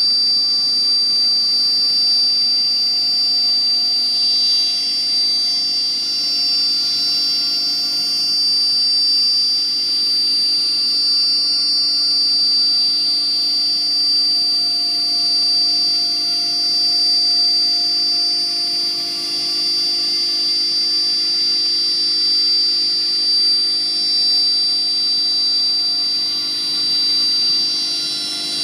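BMG 1325 CNC router running, its spindle giving a steady high-pitched whine over a lower machine hum.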